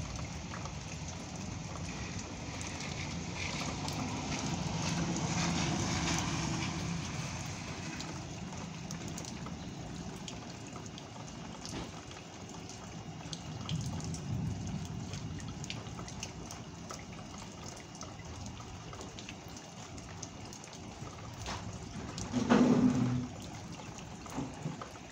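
Steady rain falling, a continuous hiss that swells a little for a few seconds about four seconds in. Near the end a brief, louder sound lasting about a second stands out above the rain.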